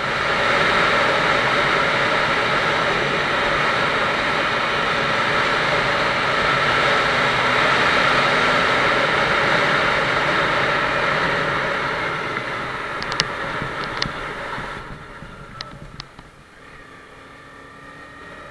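Motorcycle under way at speed, heard from an action camera on the bike: a steady rush of wind and engine noise that drops off sharply about fifteen seconds in, with a few sharp ticks just before and after the drop.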